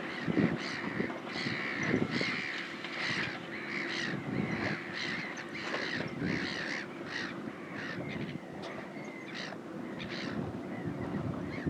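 A flock of crows cawing over and over, several birds calling at once, over the steady low hum of a tractor engine working the plough.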